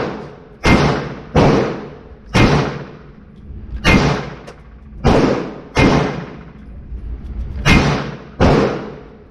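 FN P90 firing 5.7×28mm rounds as single shots, about eight sharp reports spaced unevenly 0.7 to 1.6 seconds apart, each with a short echo off the walls of an indoor range.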